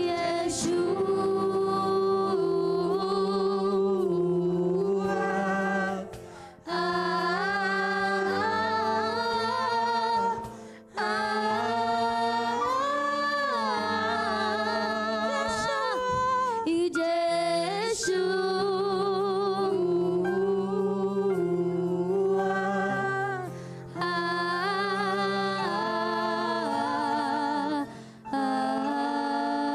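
A cappella vocal group singing a worship song in close harmony: held chords with vibrato in the upper voices over a low bass part. The singing breaks briefly between phrases four times.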